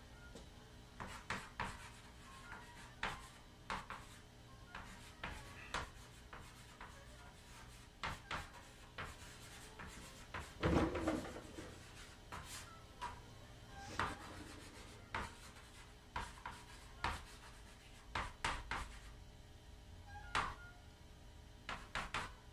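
Chalk writing on a wall-mounted chalkboard: irregular taps and short scratchy strokes as letters are written, with one louder, longer thump just before the middle.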